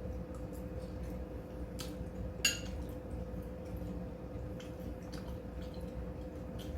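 Close-up chewing of a mouthful of springy squid: soft, wet mouth clicks, with one sharper click about two and a half seconds in, over a steady low hum.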